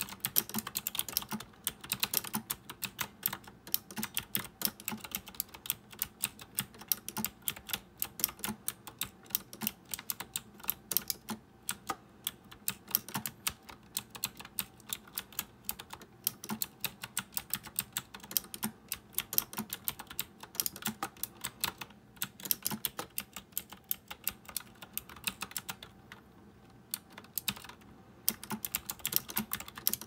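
Fast typing on an RK Royal Kludge typewriter-style mechanical keyboard with round keycaps: a dense, uneven run of clicky keystrokes, with a short lull near the end.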